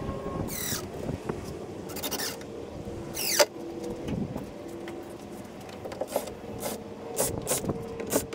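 Cordless drill-driver run in short bursts, driving screws through a metal hinge into a plywood lid, among clicks and knocks of the hardware and tool being handled.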